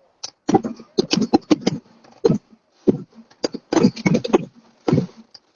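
Fireworks going off: a rapid, irregular string of sharp bangs and cracks, some close together and some spaced apart.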